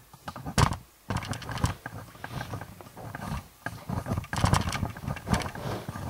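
Rough growling noises in irregular bursts, starting about half a second in.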